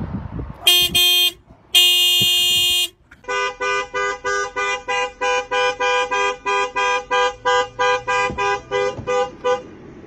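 Car horns honked by dogs pressing on the steering wheel. One horn gives a short blast, then a longer one of about a second. Then a second, lower-pitched car horn sounds in a rapid run of short toots, about three a second, for some six seconds.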